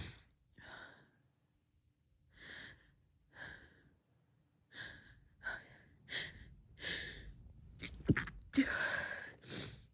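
A woman's sharp, breathy gasps come faster and faster during a sneezing fit, building to a stifled sneeze about eight seconds in, followed by a longer breathy sneeze and another short one.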